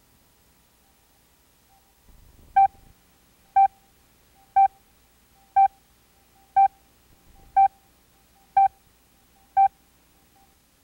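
Videotape countdown-leader beeps: eight short, identical beeps of one pitch, one each second, marking the numbers of the countdown. The beeps start a couple of seconds in and stop a second or so before the picture starts.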